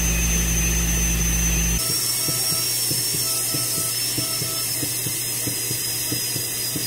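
Ultrasonic dental scaler running on a dog's teeth: a thin, steady high whine over a spray-and-suction hiss. A low hum cuts off about two seconds in, leaving light irregular ticking under the whine.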